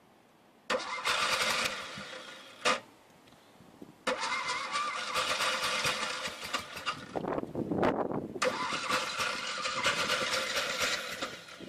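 Car engine being cranked over by its starter: a short attempt about a second in, a sharp click, then a long cranking run from about four seconds in.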